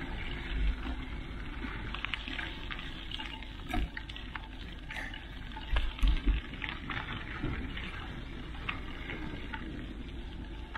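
Mountain bike rolling along a gravel trail: steady noise of tyres on loose gravel, with scattered clicks and rattles from the bike and a couple of heavier knocks, the loudest about six seconds in.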